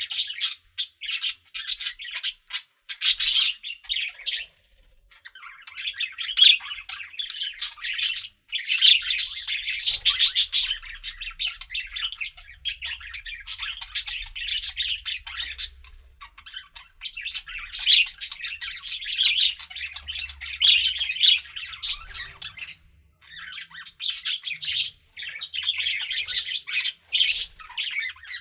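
Several budgerigars chattering and warbling, a dense stream of short chirps and squawks broken by a few brief pauses.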